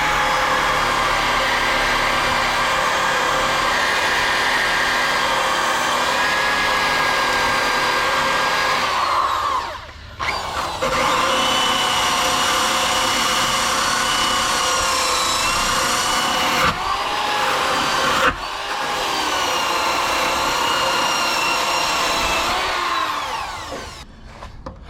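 Handheld power tool grinding a steel frame rail down to bare metal, its pitch sagging as it bears on the metal. It winds down about ten seconds in, starts again, and winds down near the end.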